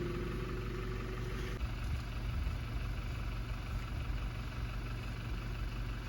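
Steady low engine rumble, like a vehicle idling or running. A held tone of several pitches sounds over it and stops about a second and a half in.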